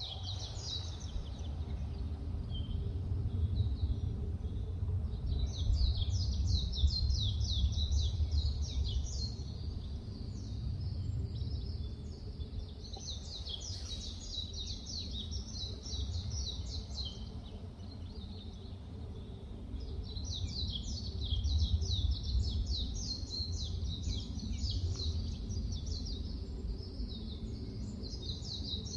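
Forest ambience: several songbirds chirping in rapid, dense runs of high notes that swell in waves, busiest about five to nine seconds in, again around twelve to seventeen seconds, and again from about twenty seconds on. A steady low rumble lies underneath.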